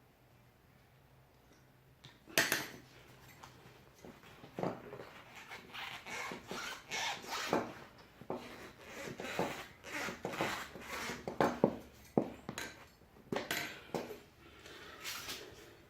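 Hand tools knocking, clinking and scraping on a steel steering rack while its inner tie rod is worked loose. A sharp knock comes about two seconds in, then irregular clanks and scrapes.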